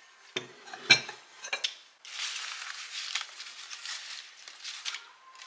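A ceramic pumpkin jar and its lid knock and clink a few times in the first second as they are handled and set down. From about two seconds in, paper money rustles steadily as a pile of dollar bills is spread out by hand.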